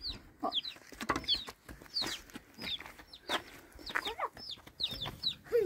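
Chickens clucking, with many short, high calls falling in pitch, several a second, and a few lower calls in between.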